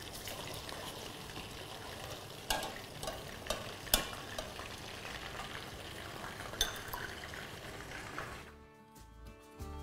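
Food sizzling in oil in a frying pan on a gas hob, with a spoon stirring and scraping: several sharp clicks of the spoon against the pan. The sizzle cuts out near the end as music comes in.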